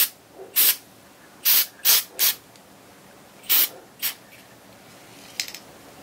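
Aerosol can of WD-40 Long-Term Corrosion Inhibitor spraying in about seven short, sharp bursts onto steel impact sockets, with a few faint clicks near the end.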